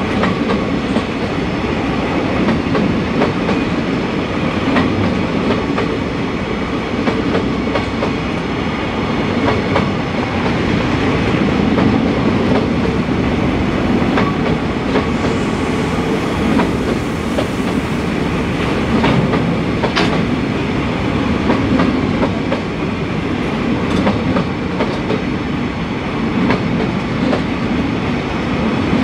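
A train of empty open freight wagons rolling past: a steady rumble and rattle of steel wheels on the rails, with occasional sharp clicks and knocks.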